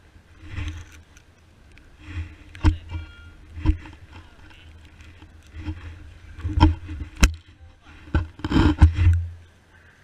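Wind buffeting the microphone in gusts, with scattered sharp knocks and scuffs from digging and handling tools at a hole in the grass, and a brief high tone about three seconds in.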